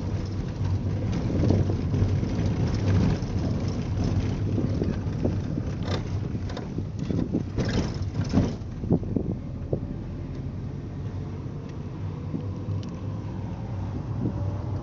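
Vehicle cabin noise while driving: a steady low engine and road hum, with scattered short knocks and rattles, more of them midway through.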